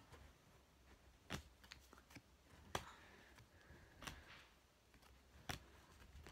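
Near silence, broken by four faint, sharp clicks evenly spaced about a second and a half apart.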